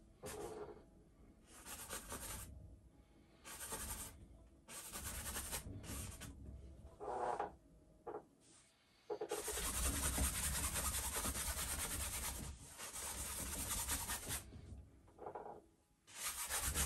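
A wide flat brush scrubbing paint onto a stretched canvas in a series of separate strokes, the longest lasting about three seconds near the middle.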